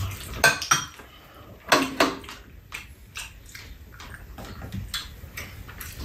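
Metal spoons and chopsticks clinking and scraping against ceramic bowls during a meal, a scatter of short sharp knocks with a few soft eating sounds between them.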